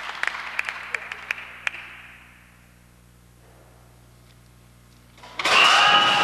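Audience applause thinning out and dying away over the first couple of seconds, then a few seconds of quiet. About five and a half seconds in, a loud noisy drone with steady high tones starts abruptly.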